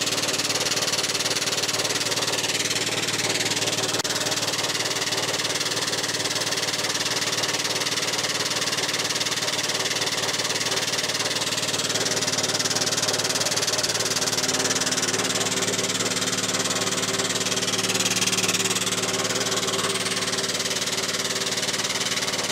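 Air-over-hydraulic pump of an 8-ton long-ram jack running on 120 psi shop air, pumping steadily with an air hiss as the ram rises smoothly. Its tone shifts slightly about 14 seconds in.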